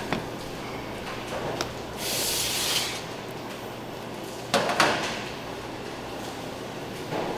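Handling noise from chocolate-making work: a few sharp knocks and clatter of tools and containers, with a brief scraping hiss about two seconds in, over a steady low hum.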